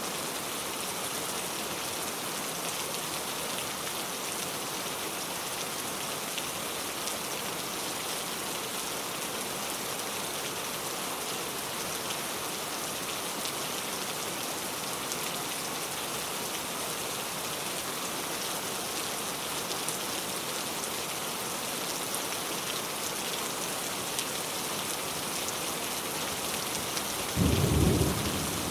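Steady rain falling and pattering on surfaces, with a sudden loud low rumble of thunder near the end.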